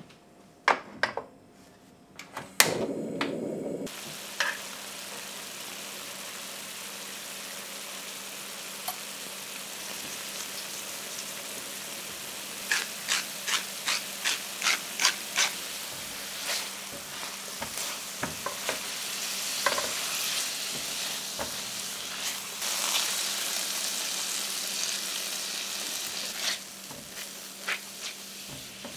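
Diced baby potatoes sizzling in olive oil in a frying pan, stirred now and then, after a few sharp clicks and a loud burst in the first seconds. About halfway through, a pepper mill grinds in a quick run of clicks. Near the end the sizzle drops sharply as cream goes into the pan.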